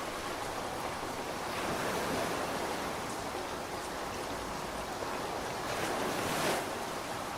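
Steady heavy rain: a continuous hiss that swells briefly a couple of times.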